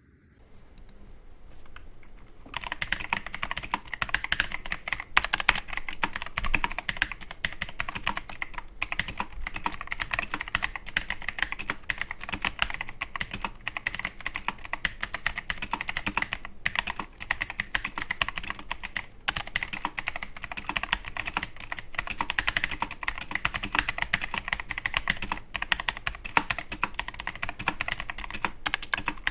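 Someone typing steadily and fast on a Logitech G513 mechanical keyboard fitted with replacement key switches, a dense stream of key clicks that starts about two and a half seconds in, as a sound test of the new switches.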